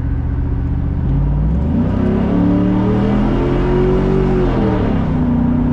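Chevrolet SSR's V8 with its Corsa exhaust pulling under throttle: the revs climb about a second and a half in, hold high, then fall away near the end. Heard from the open cockpit with the roof down.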